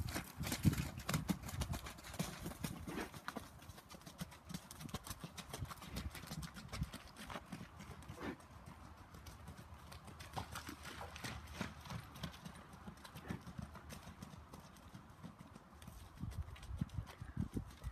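Hoofbeats of a gaited Kentucky Mountain Saddle Horse gelding moving over wet, muddy ground. They are loudest at the start, while the horse is close, then fainter as it moves off.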